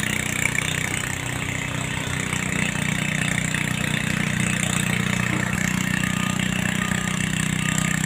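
An engine idling steadily with an even low throb, its note shifting slightly about five and a half seconds in.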